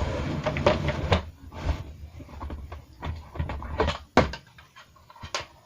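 Objects being handled and set down: irregular knocks, clicks and rustling, with one sharp click about four seconds in.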